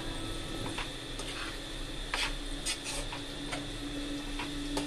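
Steel spoon stirring and scraping okra and spices around a nonstick kadai, with irregular light clicks as the spoon knocks the pan.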